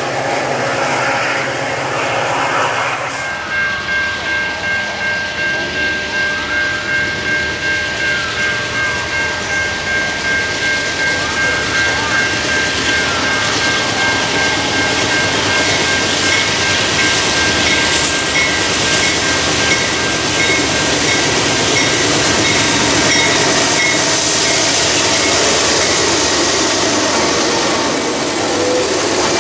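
A Canadian National freight train approaching and passing, with diesel locomotives and then loaded hopper cars rolling on the rails, the rushing noise building over the last dozen seconds. Through the first part a grade-crossing warning bell rings steadily, about one and a half strokes a second.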